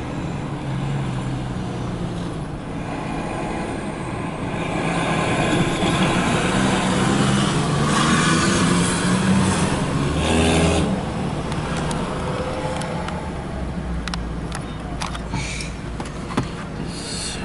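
A pickup truck drives past close by, its engine and tyres growing louder to a peak about eight to ten seconds in, then falling in pitch and fading as it goes away. A few sharp clicks come near the end.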